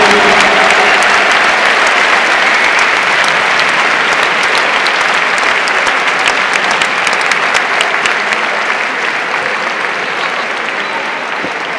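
Audience applauding, dense clapping that slowly thins and quietens toward the end.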